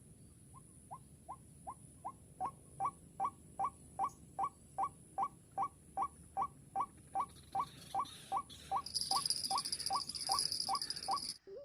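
White-breasted waterhen call: a long, even series of short rising notes, about two and a half a second, growing louder. About three-quarters of the way in, a loud, steady, high buzz joins. Both cut off abruptly just before the end.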